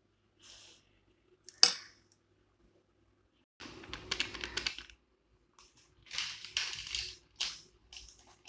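A spoon tapping and scraping against a bowl as spices are spooned onto raw chicken: one sharp click about a second and a half in, then bursts of rapid clicking and rattling around four seconds and again from about six seconds.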